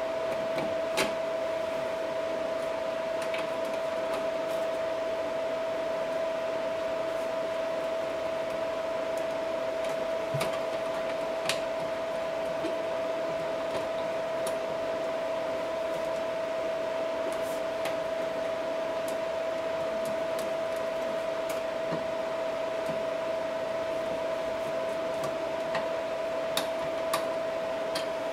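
A steady mechanical hum with a fixed tone, with a few light clicks and knocks from plastic drain-pipe parts being handled under a washbasin.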